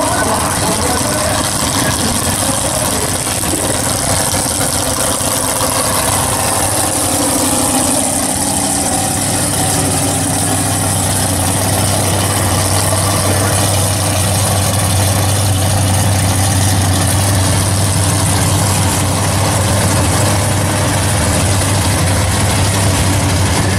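Drag-race car engines running loudly at the starting line of a drag strip, settling from about nine seconds in into a steady, deep idling drone.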